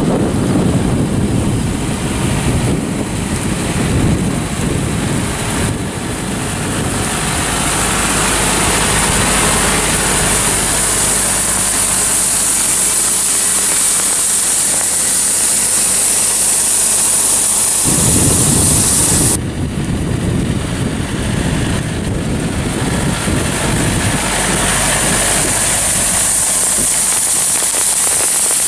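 A tractor engine runs under a strong steady hiss. About eighteen to nineteen seconds in, the sound changes abruptly, as at a cut between shots.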